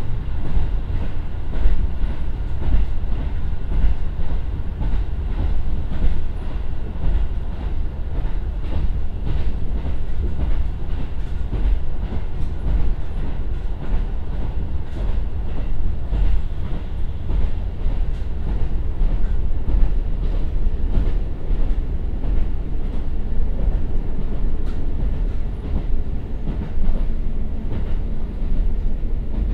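Cabin running sound of a KiHa 150 single-car diesel railcar, with a Komatsu turbo diesel engine, slowing from about 80 to 60 km/h. It is a steady, deep rumble of wheels on rail with scattered light clicks.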